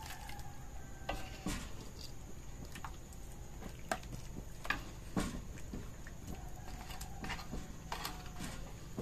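Plastic ladle and metal spoon tapping and scraping against a metal wok and a plastic bowl while fish soup is dished out, a scattered series of short sharp clicks and knocks.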